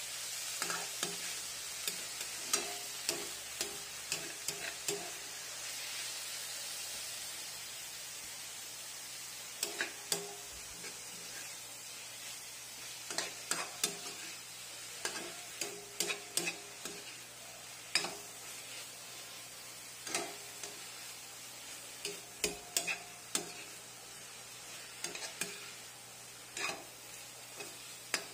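Long slotted metal spatula scraping and clacking against a metal wok while stir-frying upland kangkong (water spinach), in irregular clusters of sharp, briefly ringing clicks. Under it runs a steady sizzle of the greens frying, louder in the first few seconds and fainter afterwards.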